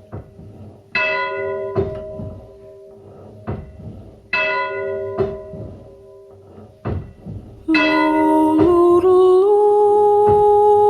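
A church bell struck twice, each stroke ringing out and slowly dying away, with sharp knocks in between. About three quarters of the way through, music comes in with a loud held note that slides up in small steps.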